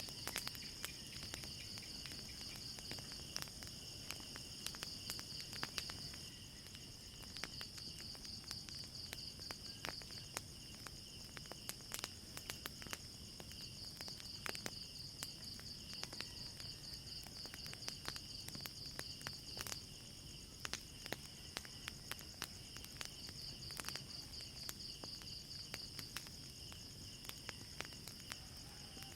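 Crickets chirping in a continuous high trill, with scattered sharp crackles and pops from a burning wood fire.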